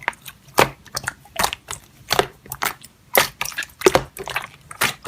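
Slime being pressed and worked by hand, making short sharp clicking pops about two to three times a second, irregularly.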